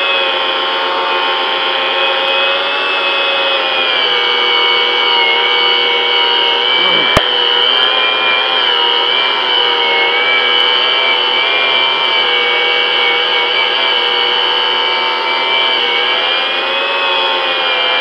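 Angle grinder with a buffing pad running steadily against an aluminium wheel rim, a continuous motor whine that dips slightly in pitch a couple of times. One sharp click about seven seconds in.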